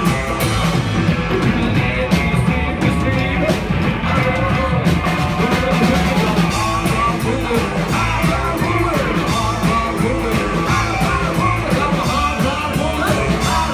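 A live rockabilly band playing: electric hollow-body guitar, upright double bass and drum kit keeping a steady beat, with a man singing over it.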